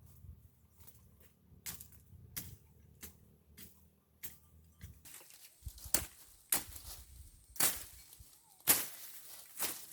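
Weeds being cut with a hand tool: sharp chopping strikes, sparse and faint at first, then about one a second in the second half.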